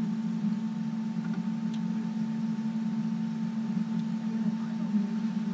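Boat motor running steadily at trolling speed, a low hum with a faint steady whine above it.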